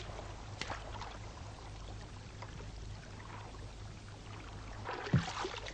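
Gentle water noise under the steady hiss and low hum of an old film soundtrack, with a few faint sudden sounds about five seconds in.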